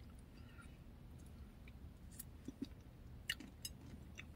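Faint chewing of soft cheesecake, with a few small sharp clicks scattered through.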